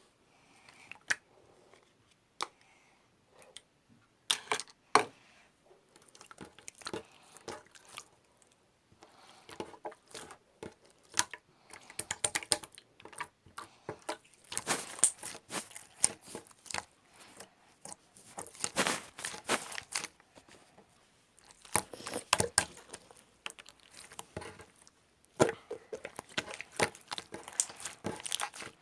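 Slime being squished, poked and stretched by hand, making sticky crackles, pops and clicks. A few single clicks at first, then denser crackling flurries from about ten seconds in, the busiest near the end.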